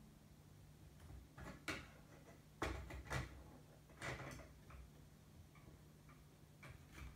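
A handful of faint, irregular clicks and light knocks from metal parts as a 3D printer's threaded lead screw is handled and lined up in the Z-axis frame.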